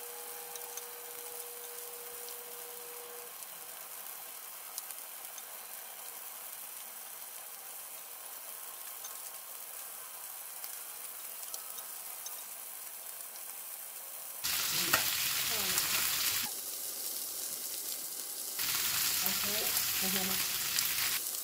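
Trout pieces sizzling in hot oil in a nonstick frying pan while being turned over with a wooden spatula, a steady hiss with a few small clicks. The sizzle gets clearly louder about two-thirds of the way in, dips briefly, and rises again near the end.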